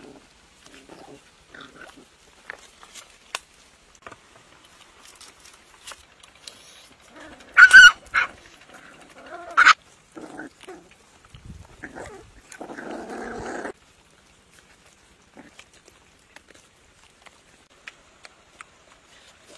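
Puppies feeding on a roasted duck: small chewing and tearing clicks, two loud short puppy squeals about eight and ten seconds in, and a rough growl lasting about a second a little later.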